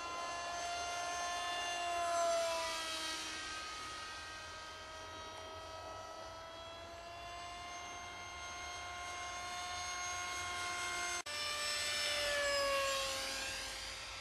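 Electric motor and propeller of an RC Pushy Cat model jet whining in flight, a steady high multi-tone whine. It swells and drops in pitch as the model passes by about two seconds in and again near the end, with a brief dropout about eleven seconds in.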